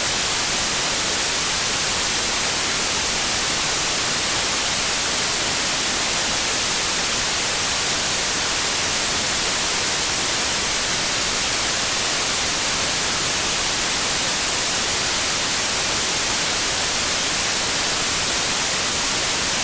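Steady white noise: an even hiss, strongest in the high register, with no changes or breaks.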